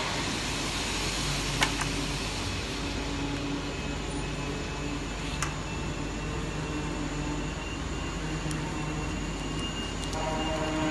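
Continuous fusing press running with a steady mechanical hum, with two sharp clicks, about 2 and 5 seconds in.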